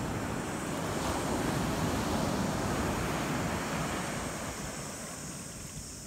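Ocean surf washing up onto a sandy beach, an even rush of water that swells about two seconds in and then slowly fades, with some wind on the microphone.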